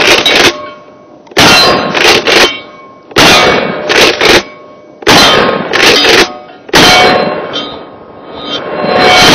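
12-gauge Mossberg Maverick 88 pump-action shotgun firing mini shells fast, a loud shot about every two seconds, five in all. Each shot is followed by the pump being worked and steel targets clanging and ringing.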